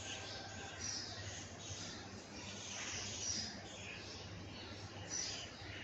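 Several small birds chirping and calling over one another in a faint steady background hiss, the calls short and high.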